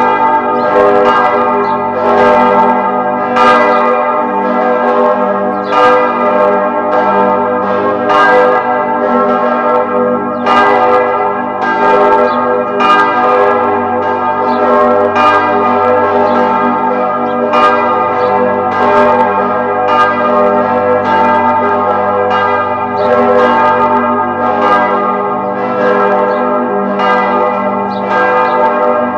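Several church bells pealing, struck one after another in quick succession, with their tones ringing on and overlapping into a continuous, loud clangour.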